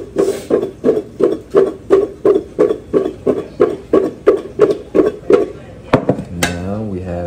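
Chopped potatoes being mixed with olive oil and seasoning in a bowl, in regular knocks about three a second. The knocks stop about five seconds in and are followed by a brief wavering tone.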